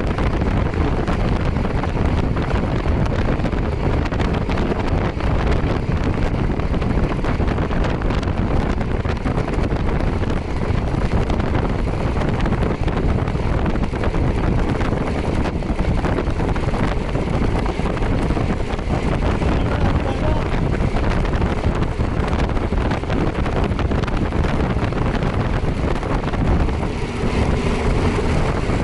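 Wind rushing over the microphone of a moving motorcycle, with engine and road noise underneath, steady throughout.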